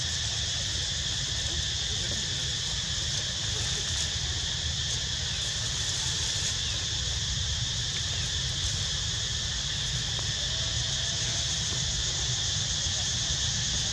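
Steady, unbroken high-pitched insect chorus buzzing in the trees, with a low rumble underneath.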